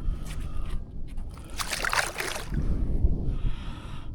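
Water sloshing and splashing at the side of a fishing kayak, with one louder splash lasting about a second in the middle.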